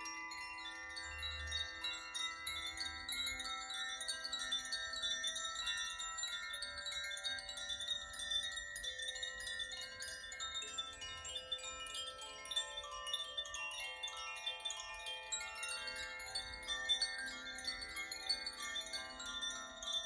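Koshi and Zaphir chimes, one painted tube and one bamboo tube, gently swung by hand so their clappers strike the tuned metal rods inside. The result is a continuous wash of overlapping ringing notes, with new strikes joining in all the time.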